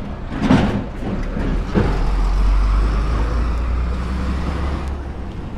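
Road traffic: a motor vehicle drives past on the adjacent road, its low engine and tyre rumble swelling and then easing off. There is a brief bump near the start.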